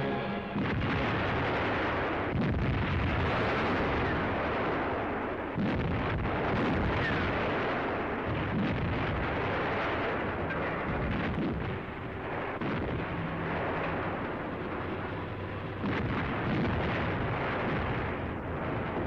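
Heavy long-range artillery gun firing: several booms, the sharpest about half a second, two, five and a half and sixteen seconds in, over a continuous rumbling din.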